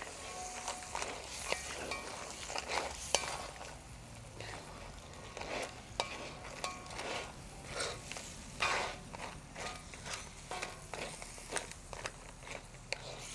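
Dungeness crab pieces being stirred with a wooden spatula in a cast-iron wok of simmering sauce: irregular scrapes and clacks of shell against the pan over a light sizzle.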